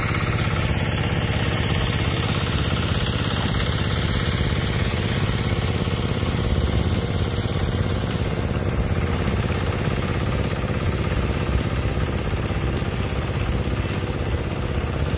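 A small engine running steadily at an even idle-like speed.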